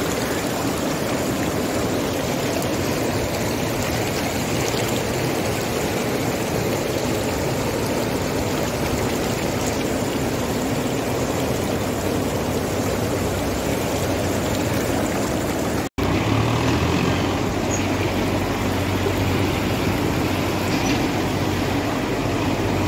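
Fast mountain river rushing steadily over boulders. After a brief cut about two thirds through, a steady low engine hum joins the water noise, from a tractor pulling a trailer across a suspension bridge.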